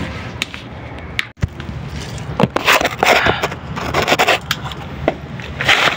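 Hand tools scraping and clicking irregularly against a junction box as holes are worked open in it for cable entries.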